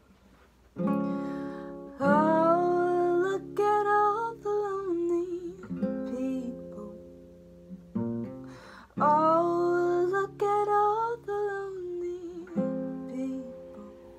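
Nylon-string acoustic guitar with a capo, strummed in chords. A gliding melodic phrase over the chords comes twice, with short pauses between.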